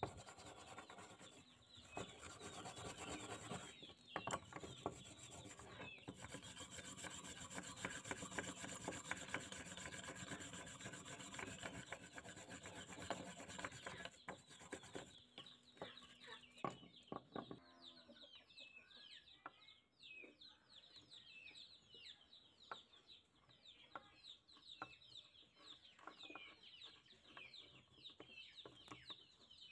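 A rotary wire cup brush scrubbing rust off the steel handles and jaws of old locking pliers, a dense scratching noise over a steady motor hum that stops a little over halfway through. After that, chickens cluck in the background.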